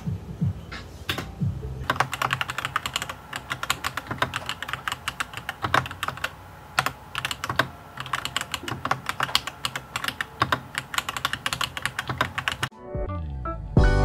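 Typing on a Dareu Z82 mechanical keyboard with Dareu Blue Sky V2 switches. The keystrokes come sparse at first, then settle into a steady fast run, with background music underneath. The typing stops about a second before the end as the music takes over.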